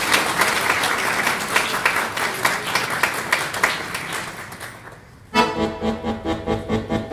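Audience applause that dies away over about five seconds, then an accordion starts playing suddenly, a little over five seconds in, with a rhythmic run of repeated chords.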